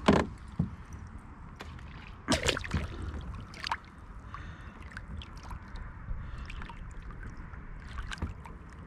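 Water splashing and knocking around a kayak, with a few sharp splashes: one right at the start, a louder cluster about two and a half seconds in, and smaller ones later, over a steady low wash of water.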